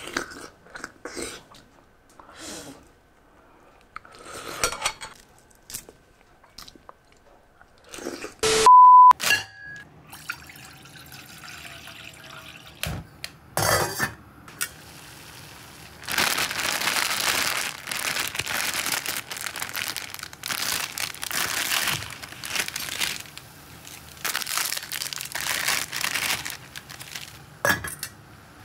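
Short eating sounds, then a loud steady beep tone for about half a second. Then about twelve seconds of steady, rushing hiss from ramen noodles boiling in a covered stainless steel pot.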